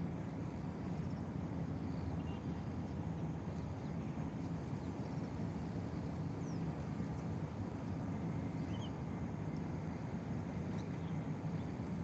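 Steady low rumble of distant city traffic, with a few faint, brief bird chirps scattered through it.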